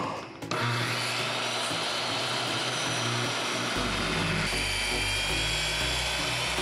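Circular saw starting suddenly about half a second in and cutting through a wooden butcher block, a steady high whine over the cutting noise.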